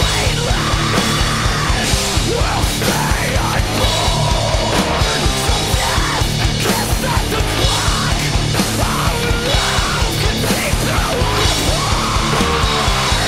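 Metalcore song with yelled vocals over distorted, driving music, with an acoustic drum kit played along to it: fast kick drum and crashing cymbals.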